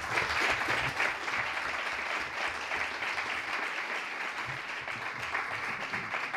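Audience applauding steadily with dense clapping.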